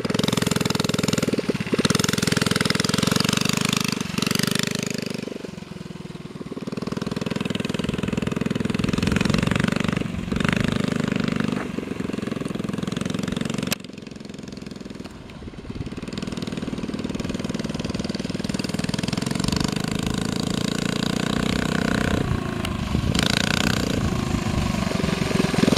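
Coleman CT100U mini bike's small engine revving up and easing off as the bike is ridden around laps, getting louder and quieter as it passes, with a sudden drop in level about halfway through.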